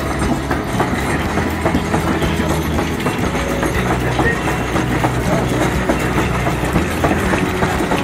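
Harrison Machine Works steam traction engine running as it drives past, with a steady mechanical clatter from its running gear.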